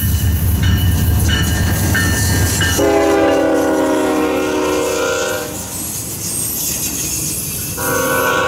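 Norfolk Southern diesel locomotives passing close by with a deep engine rumble and wheels on the rail, while short repeated tones ring in the first few seconds. About three seconds in, the locomotive air horn sounds a long chord for nearly three seconds, and it sounds again near the end.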